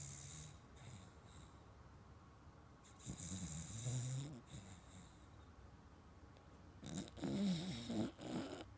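American cocker spaniel snoring, three snores in a slow steady rhythm about every three and a half to four seconds: one fading out at the start, one about three seconds in, and one near the end.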